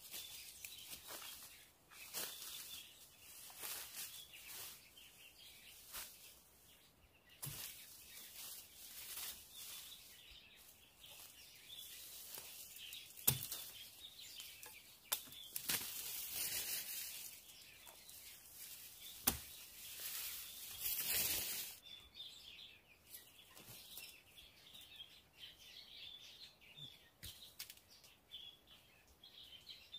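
Rustling with scattered clicks and knocks, with two longer, louder bursts of rustling about halfway through, over a faint steady high chirping.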